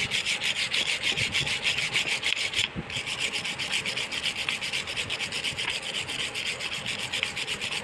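Soft wire brush scrubbing the aluminium cylinder and casing of a Honda CG 125 engine in quick back-and-forth strokes, about five a second, with a short pause about three seconds in. The brushing takes the oxidation spots and rust off the metal to bring back its original silver finish.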